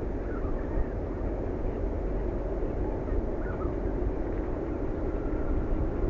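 Steady low outdoor rumble with a few faint, short bird chirps, about half a second in and again about three and a half seconds in.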